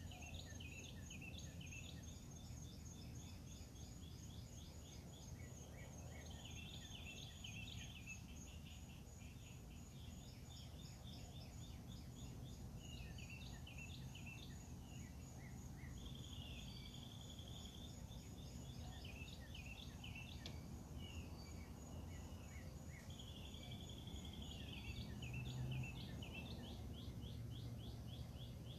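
Several birds singing and calling outdoors, faint, with a rapid trill that comes back three times. Under the birds runs a steady high pulsing tone and a low rumble.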